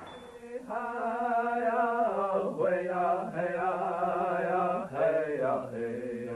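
A voice chanting in long held notes, three drawn-out phrases with short breaks between.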